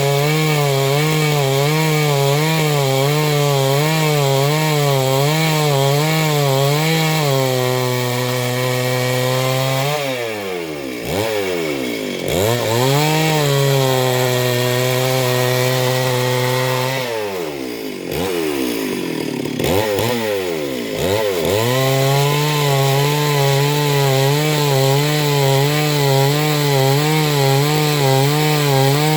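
Two-stroke chainsaw running at high revs while cutting Gamhar wood, its pitch wavering steadily under load. Twice, about ten and eighteen seconds in, the revs fall away sharply and climb back up.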